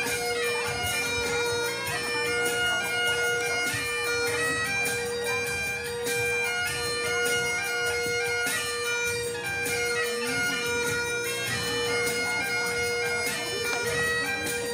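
Great Highland bagpipe playing a Highland dance tune, the melody moving over one steady, unbroken drone.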